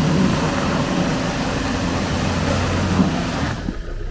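Off-road 4x4's engine running at high revs under load as it is driven out of deep mud, the noise dropping off sharply about three and a half seconds in as the driver lets off.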